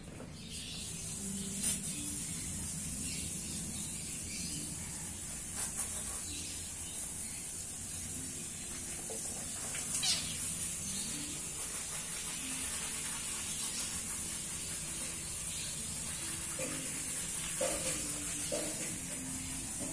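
Kittens play-fighting, with a few short mews near the end and a faint squeak about halfway, over a steady high hiss.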